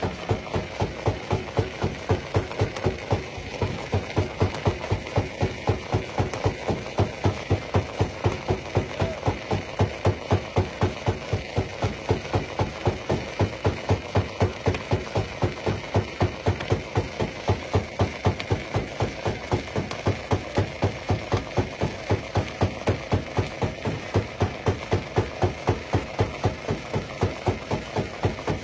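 Stone crusher running, with a steady, even thumping rhythm of about three beats a second.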